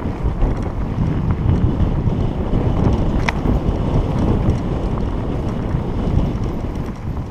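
Wind buffeting the microphone of a mountain biker's action camera, over the rumble and rattle of the bike rolling down a dirt singletrack. A single sharp click about three seconds in.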